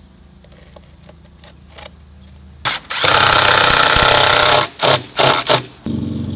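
Cordless drill driving screws into wooden siding through a hose bib mounting block: one long run of about a second and a half partway in, then a few short bursts.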